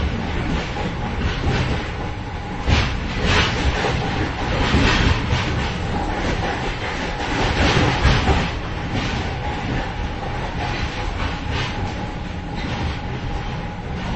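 Moving train heard from inside the vestibule between cars: a steady rumble with rattling and clattering from the car joints, louder knocks about three seconds in and again about eight seconds in, and a faint steady whine underneath.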